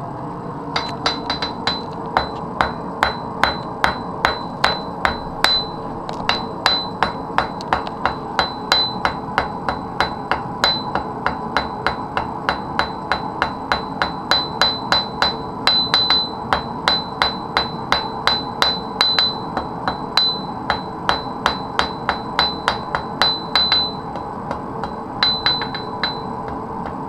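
Blacksmith's hand hammer striking iron on the anvil in a steady run of blows, about two to three a second, each with a bright metallic ring, forging out a bracelet. The blows pause briefly near the end, then a few more follow. A steady hum runs underneath.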